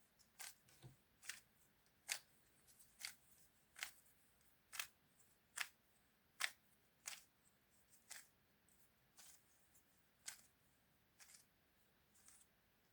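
Plastic 3×3 puzzle cube being handled and assembled: a string of small, sharp plastic clicks at uneven intervals, roughly one or two a second.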